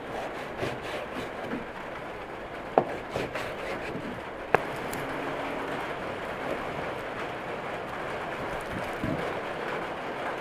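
A knife and cleaver chopping a large raw fish into steaks on a wooden cutting board, with a few sharp chops as the blade goes through the backbone into the board, the two loudest about three and four and a half seconds in, over a steady background hiss.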